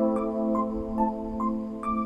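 Background music: held synthesizer chords with a keyboard melody of short notes, about two a second, over them.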